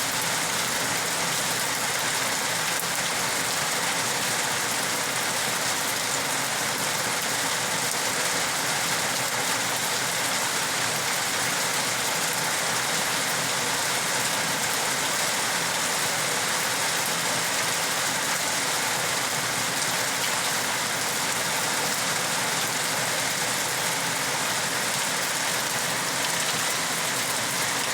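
Rain falling steadily, an even hiss that holds without break or change.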